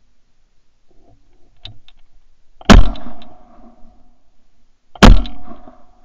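Two shotgun shots a little over two seconds apart, each a sharp, very loud blast with a short ring-off.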